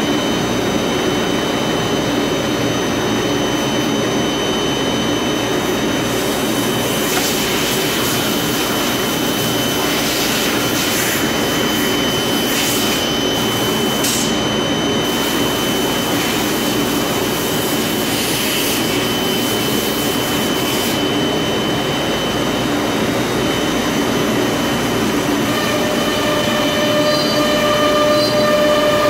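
ShopSabre 4896 CNC router cutting a melamine-faced particleboard sheet: a loud, steady machine noise with a high spindle whine. The noise grows harsher at times as the bit works through the panel, and a lower hum joins in near the end.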